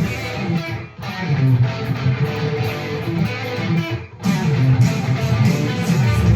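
Guitar music, plucked and strummed, with two short breaks about a second in and about four seconds in.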